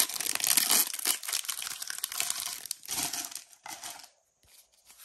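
Foil wrapper of a Pokémon booster pack being torn open and crinkled by hand, with loud crackling for the first second or two. A few shorter rustles follow and die away about four seconds in.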